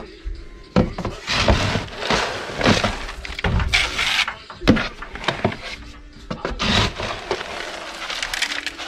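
A red plastic feed scoop digging again and again into a tub of pelleted feed and cracked corn. The pellets and grain rattle and pour against the plastic, in a run of scraping, crunching scoops.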